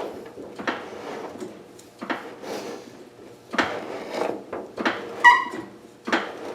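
Irregular clunks and scrapes of garage equipment being handled and moved on the floor, with a short high squeak about five seconds in.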